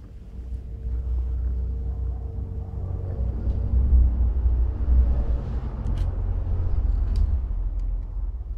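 Tabby kitten purring while being stroked: a steady low rumble that grows louder about a second in.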